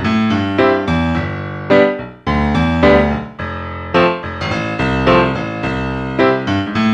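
Intro music: a piano-like keyboard playing a light melody of struck notes and chords.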